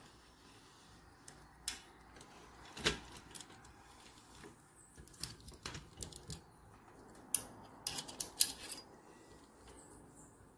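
Light metallic clicks and clinks, irregular and scattered, bunching up in quick clusters about five and about eight seconds in: a steel tube tool and a small pick handling the valve spring retainers and keepers of a Suzuki Hayabusa cylinder head.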